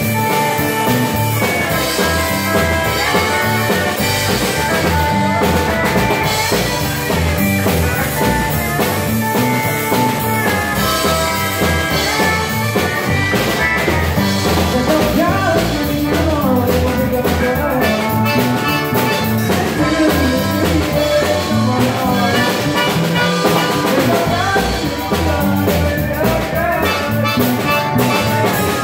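Live Cajun band playing a tune on Cajun button accordion, electric guitar, pedal steel guitar, electric bass and drum kit.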